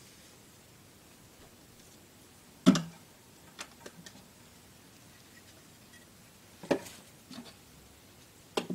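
Hard tank items being handled and set down, making a few sharp knocks and clatters: a loud knock about three seconds in, a few light taps after it, another knock near seven seconds, and one more near the end.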